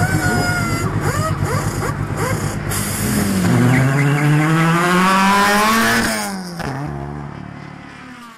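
Race car engines running; one accelerates with a steadily rising pitch for about two and a half seconds, then drops away and fades. The sound cuts off abruptly at the end.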